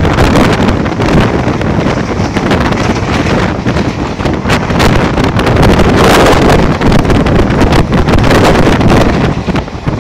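Heavy wind buffeting the microphone held out of the open doorway of a fast-running Mumbai suburban local train, over the train's running noise.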